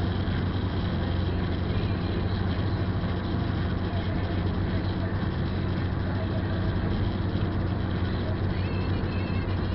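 Steady drone inside a moving car on a rain-soaked highway: engine and tyres hissing on the wet road surface, with a constant low hum.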